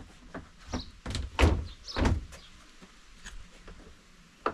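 Plastic lid of a Keter outdoor storage box being worked on its newly fitted hinges and gas struts, with several hollow plastic knocks and thunks, the loudest about one and a half and two seconds in and a short sharp one near the end. The lid is being tried to check the replacement hinges work.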